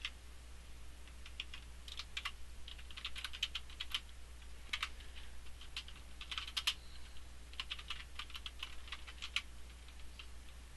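Typing on a computer keyboard: irregular bursts of keystroke clicks with short pauses between words.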